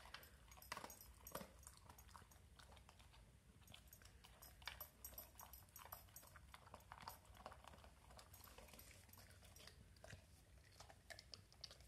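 Faint, irregular wet smacking and chewing of a pit bull eating soft scrambled eggs from a steel bowl.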